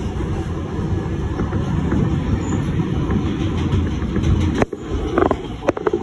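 Subway train running at speed, heard from inside the car: a steady low rumble of wheels on the rails, broken about five seconds in by a brief dip and a few sharp clacks.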